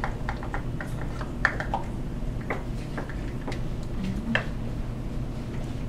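Light, scattered clicks and taps of a small measuring cup against a mixing bowl as the flour and spice mix is scooped out, about a dozen irregular ticks over a low steady hum.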